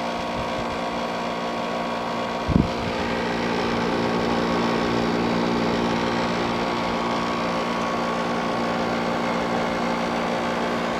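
General Electric ADEL50LRL2 dehumidifier running, its compressor and fan giving a steady hum; the coil is getting cold, a sign the compressor is working. A short low thump about two and a half seconds in.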